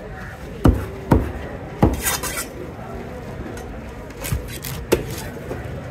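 Knife chopping through fish on a cutting block: about five sharp, irregularly spaced chops, with a short scrape about two seconds in.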